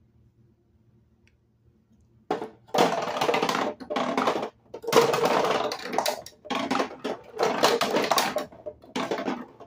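Near silence for about two seconds, then plastic balls rolling and rattling down the ramps of a toy ball-drop castle in several runs of about a second each, with short pauses between them.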